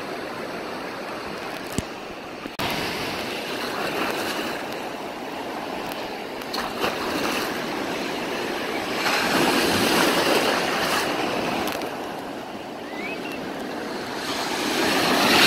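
Ocean surf washing around the legs in shallow water, with waves breaking and surging louder twice: about nine seconds in and again near the end.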